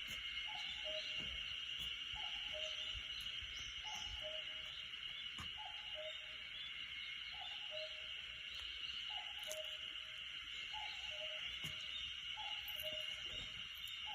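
Common cuckoo calling its two-note "cuck-oo", a short higher note dropping to a longer lower one, repeated about every second and a half to two seconds. Behind it runs a steady high-pitched hiss.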